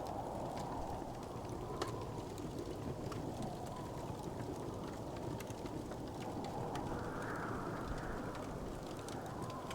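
Wood fire crackling, with scattered small pops and ticks over a steady low hiss and rumble of the burning; one sharper pop about two seconds in.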